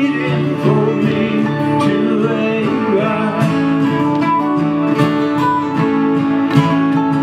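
Instrumental break of a country-folk song played live on strummed acoustic guitars with mandolin.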